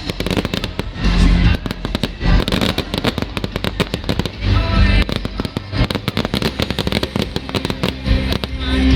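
Fireworks display with rapid, dense crackling and deep booms a few seconds apart, over music.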